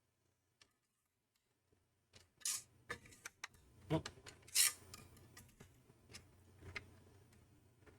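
Small hand tool and metal computer parts being worked: scattered clicks, knocks and scraping rubs, starting about two seconds in after near silence. This is the sound of reassembling the heat sinks on the CPU tray.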